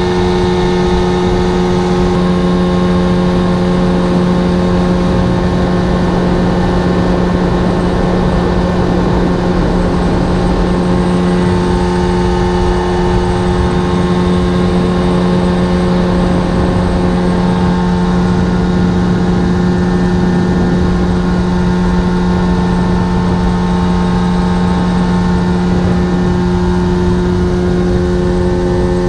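Mercury 30 hp two-stroke outboard motor running at a steady pitch, driving the boat along at speed.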